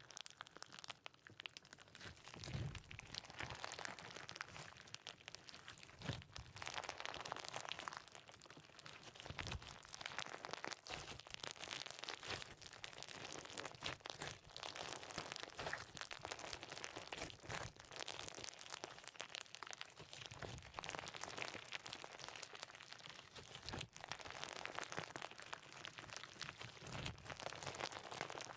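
Crunchy slime being squeezed and pressed: a continuous fine crackling and crunching, with a soft low thud every three or four seconds.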